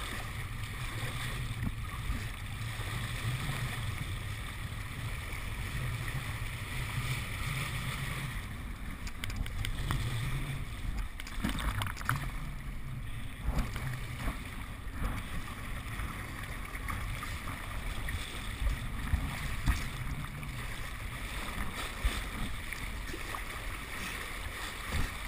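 Water rushing and splashing past a kiteboard planing across lake chop, with wind rumbling on a helmet-mounted GoPro, and occasional louder splashes of spray.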